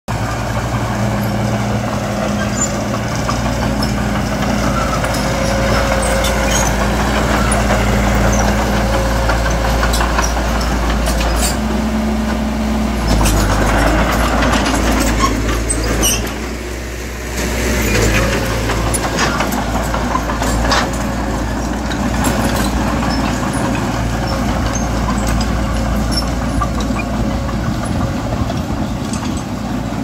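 Heavy diesel construction machinery running steadily under load, with scattered metallic clanks. The engine sound dips briefly about halfway through, then picks up again.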